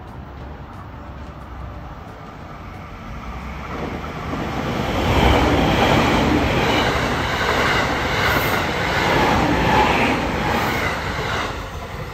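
JR Kyushu 783 series Midori limited express electric train approaching and passing close by. The wheel and rail noise swells about four seconds in, stays loud while the cars go past, and eases off near the end.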